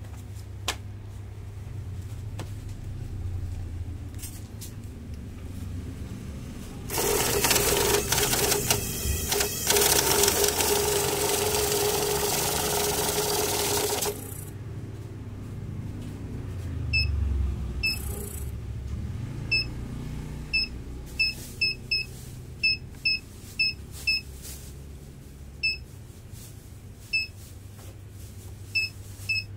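ZSA 911 friction-feed banknote counter running for about seven seconds as it riffles a stack of notes through, a loud fluttering whir over a steady motor tone that stops abruptly. Later come a dozen or so short electronic beeps from its keypad as the buttons are pressed.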